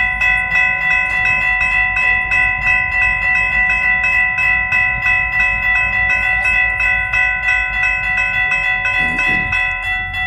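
Railroad grade-crossing bell ringing rapidly, about three to four strokes a second, each strike ringing on into the next, over a low rumble of train noise.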